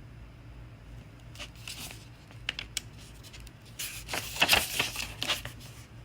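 Pages of a picture book being turned: short paper rustles and flicks, the loudest about four to five seconds in.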